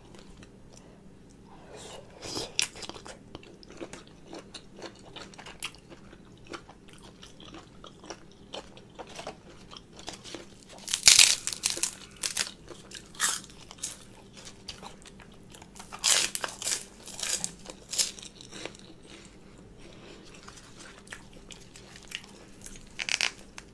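Close-up eating sounds: chewing with soft clicks, broken by several loud crackling crunches of fried pork rinds being snapped and bitten, the loudest about eleven seconds in and again around sixteen to eighteen seconds.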